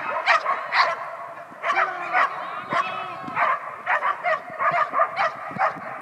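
A dog barking repeatedly in short, sharp barks, about two a second, with brief pauses.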